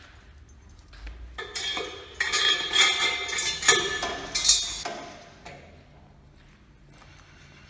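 Galvanized steel sawmill rails and their wheeled trolley clattering and ringing as they are moved and set down, a dense run of metal knocks and ringing that dies away after about five seconds.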